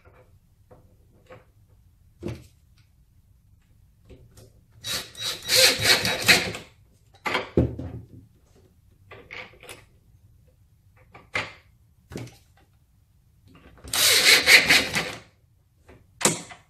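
Cordless Ridgid drill/driver driving screws into the foosball table's wooden end panel to hold the slide scorer. It runs in two bursts, about two seconds long starting about five seconds in and about a second long near the end, with light knocks from handling the parts in between.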